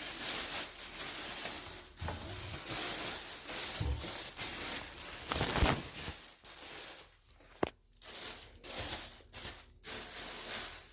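Packaging rustling and crinkling in irregular bursts, with a couple of sharp knocks, as a heavy firework cake is worked out from under other items.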